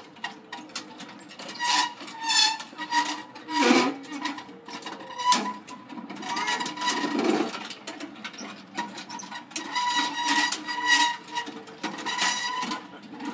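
The ungreased pivot of a chain-hung rotating ring swing squeaks again and again as it is pushed round, in drawn-out high squeals, with sharp metal clicks between them. The squeal comes from a lack of grease and sounds really ugly.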